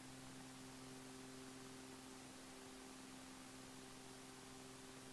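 Near silence: faint steady hiss with a low hum, an idle aviation radio channel with no one transmitting.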